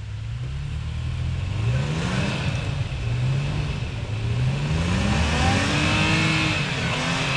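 An off-road 4x4's engine revving under load as it works up a trail obstacle, its pitch climbing once about two seconds in and again for longer near the end.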